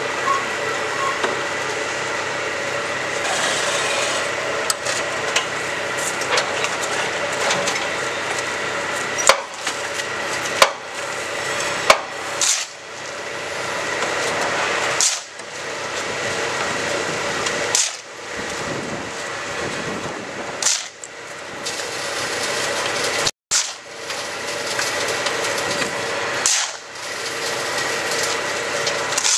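QTJ4-26A concrete block-making machine running with a steady mechanical hum. Sharp metal clanks come every few seconds as its levers and mould are worked, and the hum dips briefly several times.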